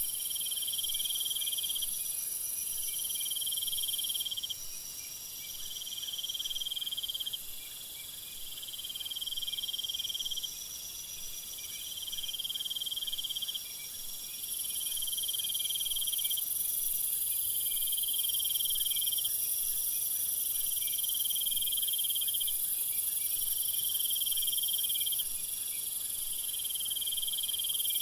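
Crickets chirping in a chorus. One keeps up trains of chirps about two seconds long with short breaks between them, over a steady high-pitched insect buzz.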